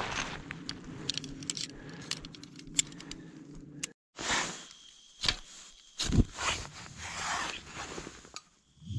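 Light metallic jingling and clinking with scrapes and crunching, in short separate strokes; the sound drops out for a moment about four seconds in.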